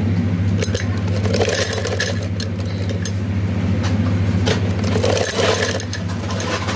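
Domestic sewing machine stitching cloth: a steady motor-like hum with a rapid light clatter of the needle and feed.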